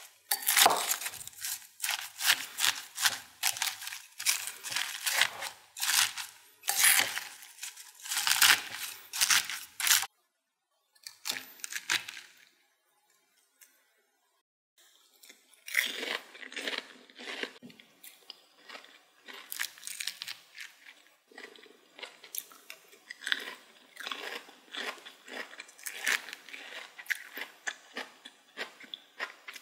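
Crisp food crunching over and over, in two long runs with a pause of a few seconds in the middle.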